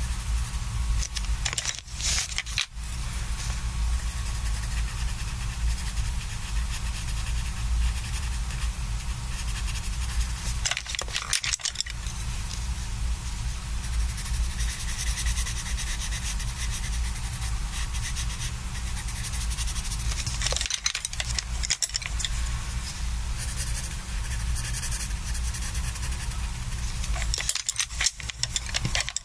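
Coloured pencil scratching on sketchbook paper in quick back-and-forth shading strokes, a steady dry rasp that breaks off briefly about four times as the pencil lifts from the page. A constant low hum runs underneath.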